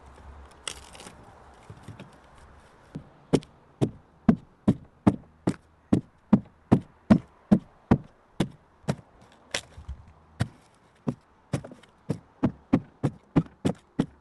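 A hand tool chopping into the wood of a dugout canoe hull as it is thinned out: a few scattered strokes, then about three seconds in a steady run of sharp chops, two to three a second.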